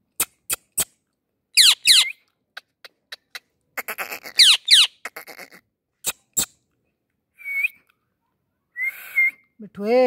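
Indian ringneck parakeet calling: two short, sharp calls that sweep quickly down in pitch within the first five seconds, with scattered sharp clicks and a couple of short raspy bursts later on.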